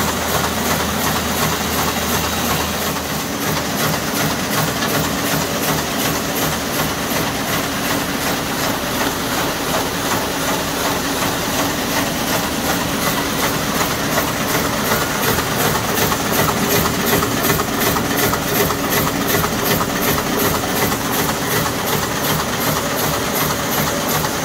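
Buhrs ITM W+D BB600 servo-driven envelope inserting machine running, its feeders and inserting section cycling with a fast, even mechanical clatter. A low hum drops away about three seconds in.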